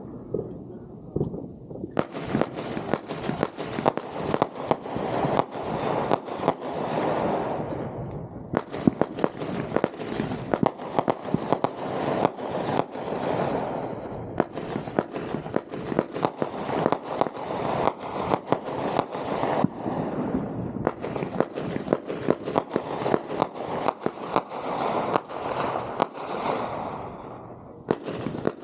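Fireworks firing rapid strings of sharp shots, in four runs of about six seconds each with short gaps between them, the first starting about two seconds in.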